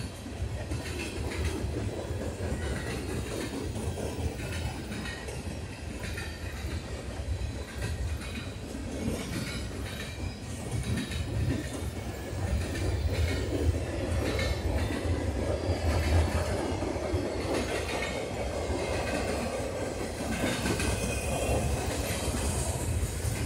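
Freight cars rolling past on steel rails: a steady rumble of wheels, with clacks as the trucks cross rail joints.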